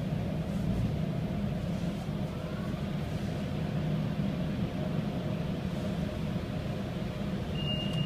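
A car running, a steady low rumble of engine and road noise. A thin high tone starts near the end.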